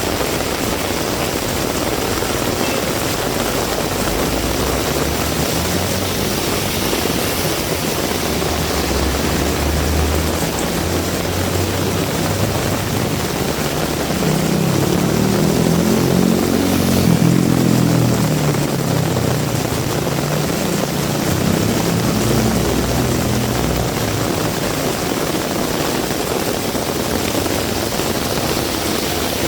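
Heavy rain falling steadily, with a motor vehicle's engine approaching and passing. The engine grows louder and rises in pitch, then falls, loudest a little past halfway through.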